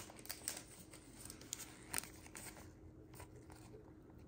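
Faint crinkling and rustling of a thin clear plastic card sleeve handled in nitrile gloves as a trading card is slid into it, with scattered small clicks, the sharpest about two seconds in.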